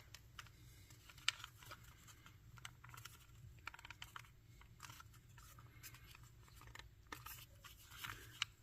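Faint scattered clicks and scratching of a small screwdriver and hands driving the back-cover screws into a radio control head, with one sharper click about a second in.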